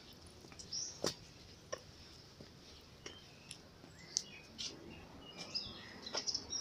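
Scattered short, high bird chirps, with a few faint knocks in between.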